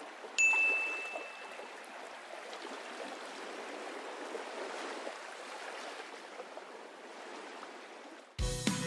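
A steady wash of running water, with a single bright chime ringing out about half a second in and fading over about a second. Music starts just before the end.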